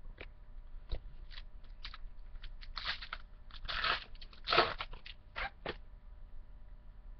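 A trading-card pack's wrapper being torn open and crinkled: a string of short crinkles and rips, with two longer, louder crackling rustles a little past halfway, then stopping near the end.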